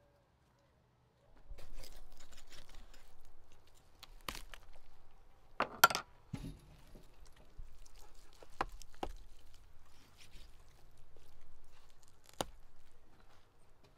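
Metal knife and serving spoon clinking against a metal tray and ceramic plates while a roast lamb stuffed with rice is carved and served. It begins after about a second of quiet, with scattered sharp clinks; the loudest comes about six seconds in.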